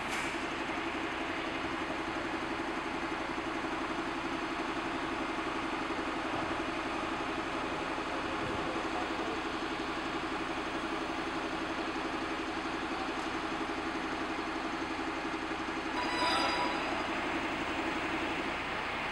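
Truck-mounted crane's engine and hydraulics running steadily under load with a constant hum while it hoists a helicopter fuselage, cutting off near the end. A short rising squeal comes shortly before it stops.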